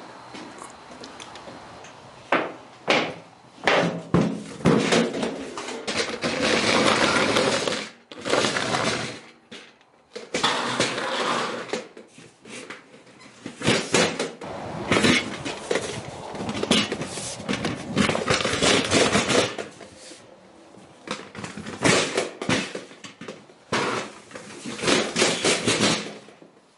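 Metal clattering and scraping as a stepladder and galvanized steel trash cans are handled and moved on a concrete floor: a run of separate knocks and longer scrapes.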